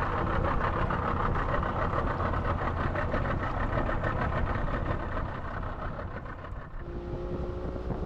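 A motor vehicle running, with a steady engine rumble and rushing motion noise that eases off about two-thirds of the way through.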